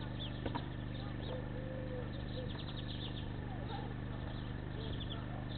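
Small birds chirping and twittering over a steady electrical hum. A single sharp click sounds about half a second in.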